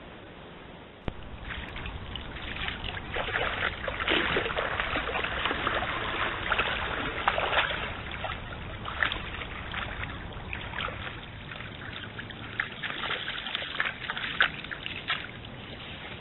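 Red deer wading and bounding through a flooded stream: irregular splashes and sloshing of water, heaviest from about three to eight seconds in and again near the end. A single click about a second in, where the hiss changes.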